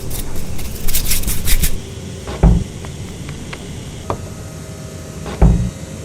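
Woodworking sounds: a quick run of scraping strokes on wood, then two heavy wooden thumps about three seconds apart, with a few light knocks between.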